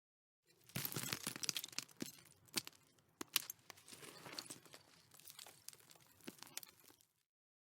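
Gravel, stones and dirt debris falling and tumbling: a dense rattle of many small hard hits starting about half a second in, heaviest over the first couple of seconds, with one sharp crack about three seconds in. It thins to a lighter patter and stops abruptly near the end.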